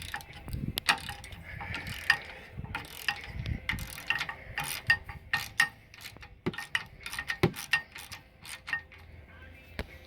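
Ratchet wrench clicking in quick, irregular runs as the 9/16 bolts holding a trailer tongue jack are backed out.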